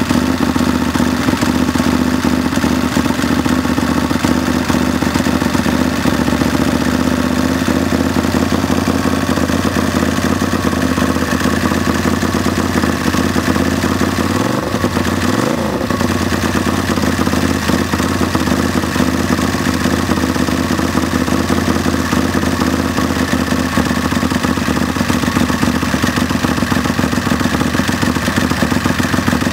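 Drag-racing lawnmower's engine running steadily as it warms up. About halfway through, its speed dips and comes back up twice in quick succession.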